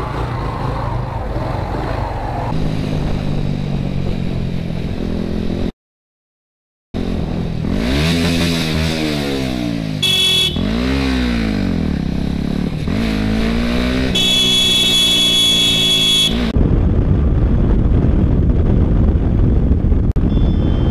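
Motorcycle engine in traffic, revving up and down as the rider accelerates and shifts, with a short horn beep about ten seconds in and a longer horn blast of about two seconds a little later. The sound cuts out for about a second before this. Near the end comes a steady engine and heavy wind rush at road speed.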